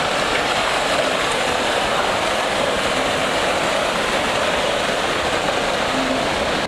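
A steady, even rushing noise with no rhythm or pitched tone in it.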